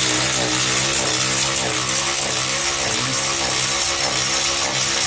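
A motor running steadily, giving a continuous low hum with a constant pitch.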